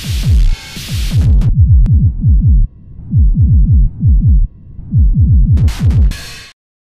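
Yamaha RS7000 groovebox playing a techno drum-machine pattern: a fast run of deep kick-drum hits, each falling in pitch, with a hissing noise layer over the first second and a half and again near the end. The beat cuts off suddenly just before the end.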